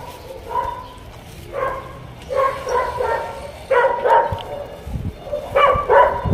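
Small dog riding in a bicycle's front basket, barking and yipping in a string of about six short high calls.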